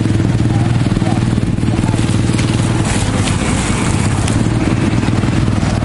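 Motor scooter engines running close by in slow traffic on a flooded street, a steady low engine hum, with a few brief sharp noises in the middle.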